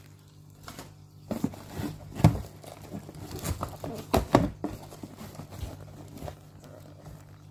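Tissue paper rustling and cardboard packaging scuffing and knocking as hands rummage in a box and lift out a small carton, a busy run of sharp crinkles and thumps between about one and a half and four and a half seconds in, then quieter handling. A faint steady low hum lies underneath.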